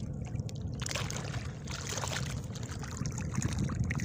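Water splashing and trickling in irregular bursts over a low steady rumble.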